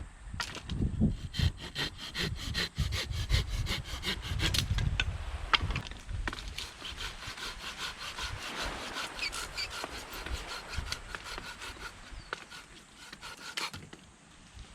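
Hand saw cutting driftwood for firewood in quick, even back-and-forth strokes, heavier in the first few seconds and lighter after.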